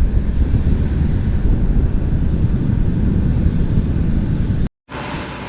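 Loud, uneven low rumble of a moving vehicle, mostly road and wind noise buffeting the microphone. It cuts off suddenly near the end, and a quieter, smoother driving noise follows.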